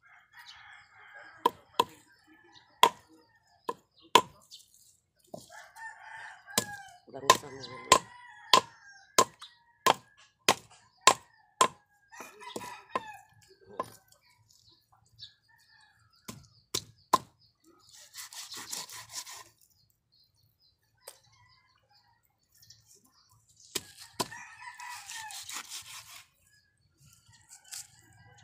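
A long knife chopping a whole fish into steaks on a wooden block, sharp strikes coming about every half second to a second for the first seventeen seconds, then only a few. A rooster crows twice in the second half.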